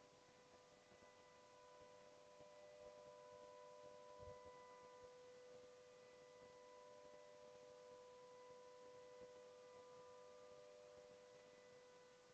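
Near silence: a faint, steady electronic hum made of a few thin tones over light hiss, with a faint low thump about four seconds in.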